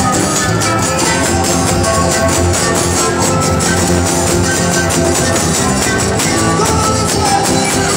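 Live band playing caporales, the Bolivian dance music, through a PA, with guitar prominent over a steady beat.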